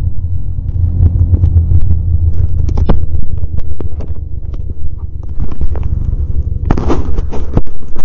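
Snowmobile engine running as the machine rides along a snowy trail, a loud steady low rumble with many short knocks and rattles from the ride. A louder rush of noise comes near the end.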